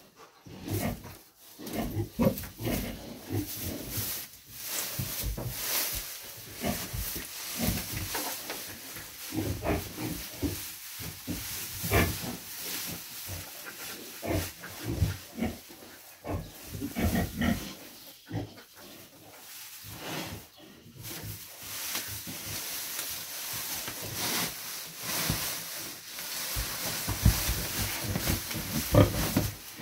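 A heavily pregnant sow grunting in short, irregular grunts while she roots and tosses straw bedding with her snout, the straw rustling: restless nest-building shortly before farrowing.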